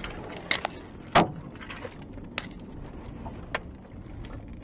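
Car leaving the road onto the rough verge, heard from inside the cabin: steady road noise with a sharp bang about a second in and several smaller knocks and rattles.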